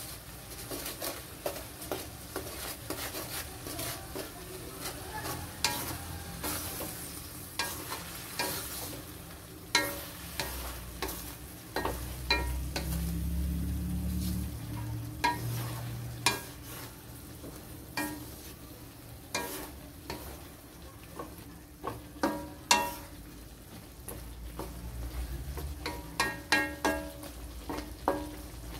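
Wooden spatula stirring and turning vegetables in a metal wok, with repeated knocks and scrapes against the pan over a light sizzle of frying.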